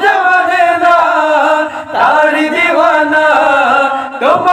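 A group of men singing a Bengali Islamic nasheed unaccompanied, voices only with no instruments, in long phrases with short breaks about two seconds in and near the end.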